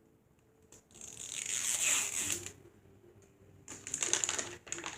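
Plastic packaging crinkling and tearing as a blind-bag toy package is unwrapped: a rustle about a second in, then a quick flurry of crackles near the end.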